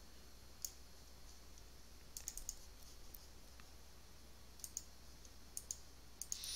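Faint computer mouse button clicks, scattered singly with a quick cluster of several about two seconds in.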